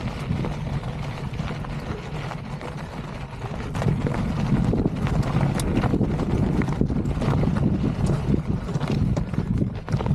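Wind buffeting the microphone over the crunch of a Polygon Siskiu mountain bike's knobby tyres rolling on rocky gravel, with many small rattles and clicks from the bike, getting louder about four seconds in.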